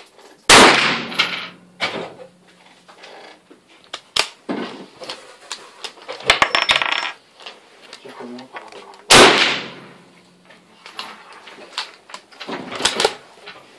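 Two .44 Magnum shots from a Ruger 77/44 bolt-action carbine, about eight and a half seconds apart, each with a reverberant tail. Between and after the shots come sharp metallic clicks and clatter as the bolt is worked.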